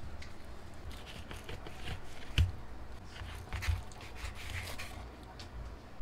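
A knife and fingers working raw fish fillets on a paper plate: soft scraping and rustling, with one sharp knock about two and a half seconds in.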